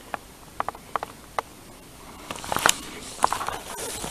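Scattered sharp clicks, then a louder burst of crackling and crunching about two and a half seconds in and again a little later, from dry twigs and forest-floor litter being disturbed.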